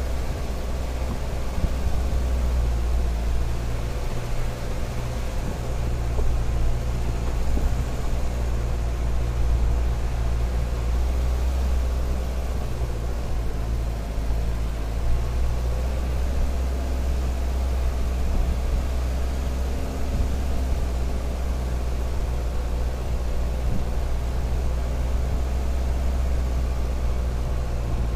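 Jeep Cherokee XJ driving slowly uphill on a dirt track: a steady low engine-and-drivetrain rumble with a constant drone, no revving changes.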